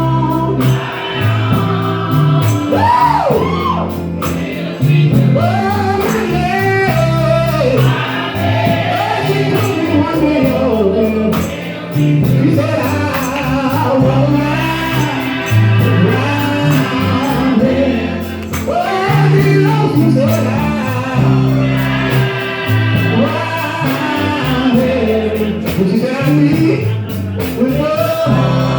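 Live gospel music: a gospel group singing with backing harmonies over a band, with a lead voice sliding and wavering above a bass line that changes note every second or two.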